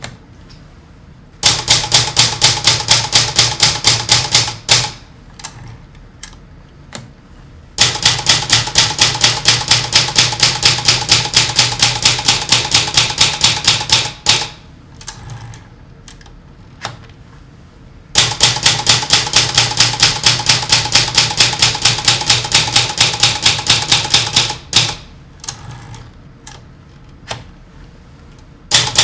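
Typewriter keys struck in long, fast, evenly paced runs of about four or five strokes a second, as a typewriter drawing is built up by repeated characters. Three bursts of typing are separated by pauses with only a few single clacks, and a fourth run starts near the end.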